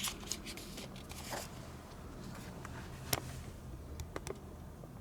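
Quiet room tone with a faint low hum and a few scattered small clicks and rustles.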